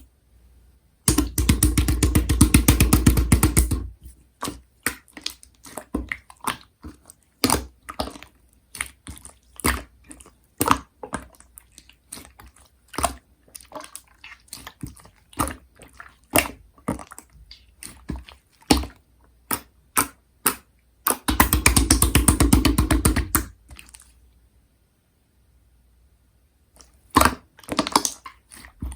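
Hands playing with slime: scattered wet clicks and pops as it is pressed and folded, with two stretches of fast, continuous crackling a few seconds long, about a second in and again about twenty-one seconds in.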